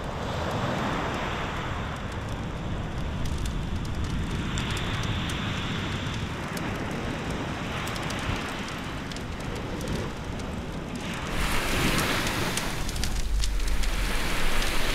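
Campfire coals crackling and hissing under banana-leaf-wrapped fish, with many small snaps. About eleven seconds in the sound grows brighter and louder, and wind rumbles on the microphone.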